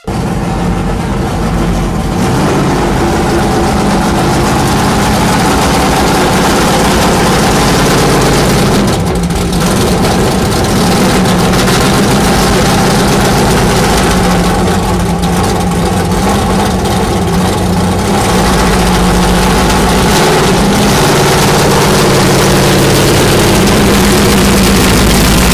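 Classic car's engine idling loudly as the car creeps past at walking pace. Its low, steady exhaust note wavers a few times.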